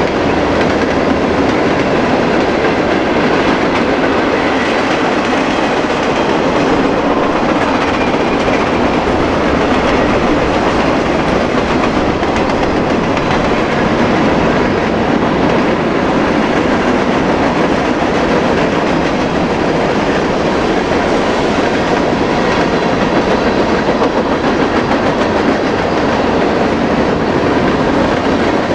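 Freight cars of a mixed train (covered hoppers, tank cars, boxcars) rolling past: a steady, unbroken noise of steel wheels running over the rails.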